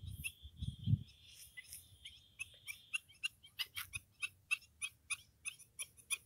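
Faint, evenly repeated short clicking calls of a small animal, about four a second, with a steady high-pitched buzz over the first half. A few low thumps in the first second.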